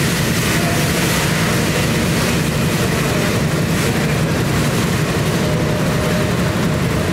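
Bangladesh Railway passenger coaches rolling past at speed: a steady, loud rumble of wheels on the rails.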